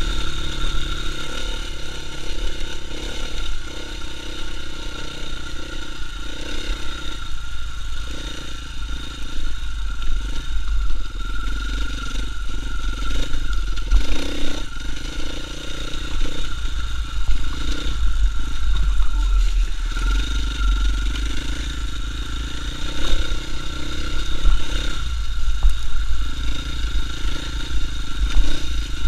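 KTM 450 EXC enduro motorcycle's single-cylinder four-stroke engine running while the bike is ridden, its sound swelling and dipping repeatedly with the throttle.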